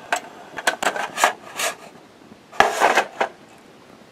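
Metal clinks and scrapes as a stainless windscreen cone and the pot inside it are lifted off a brass alcohol burner and set down on concrete. A quick run of light clinks comes first, and the loudest clatter is about two and a half seconds in.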